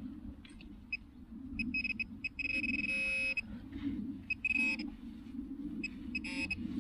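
A handheld metal-detecting pinpointer beeping as it is worked over a coin in sand. It gives several short high beeps, one longer steady tone about two and a half seconds in, and a few more beeps near the end: each signals metal close to the probe.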